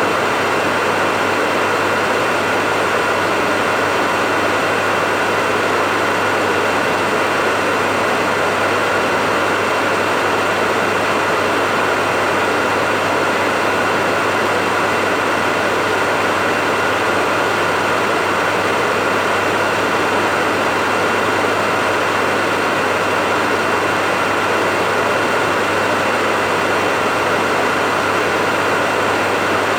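Hair dryer running steadily: a loud, even rush of air with a low motor hum and a high whine that never changes.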